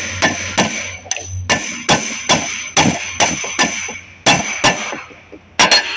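Hand hammer striking a steel piece set into a hydraulic motor's housing, about fifteen sharp blows at two to three a second with a short pause near the middle, driving a press-fit part home. Each blow is a metal-on-metal clang that rings briefly.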